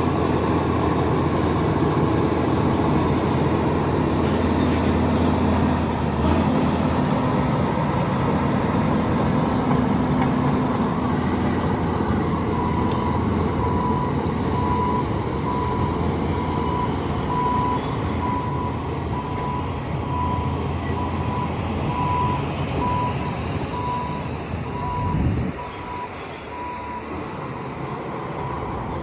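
Heavy earthmoving machine's diesel engine running, with a reversing alarm beeping about once a second from roughly halfway through. A brief low surge comes near the end.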